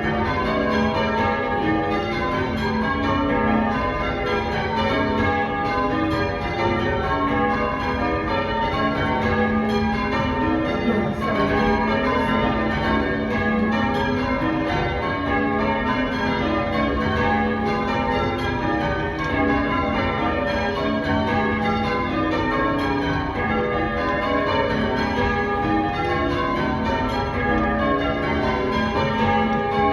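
Church tower bells rung full circle in change ringing: a continuous, evenly paced round of overlapping bell strikes.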